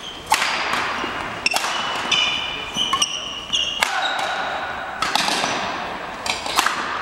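Badminton rackets striking a shuttlecock in a doubles rally: six sharp hits roughly a second or so apart, with short squeaks of shoes on the wooden court floor between them.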